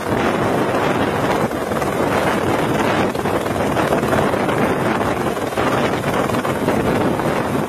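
Light helicopter hovering close by, a steady loud rush of rotor and engine noise with its rotor wash buffeting the microphone.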